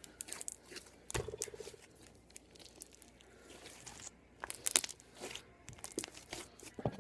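Slime being mixed, giving irregular short crackles and sticky pops as it is worked.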